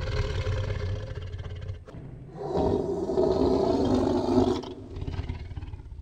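A large animal calling: a long, deep, rasping call, then a louder pitched call from about two and a half seconds in that ends near the five-second mark.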